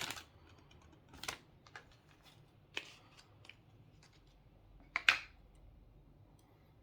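Scattered light clicks and rustles of a small box and its packaging being handled and opened, with the loudest clatter a little after five seconds in.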